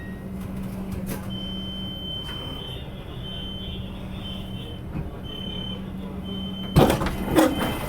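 Electronic warning beeper sounding over a steady low hum: one long high beep, then short beeps about once a second. Near the end come two loud, sudden rustling thumps.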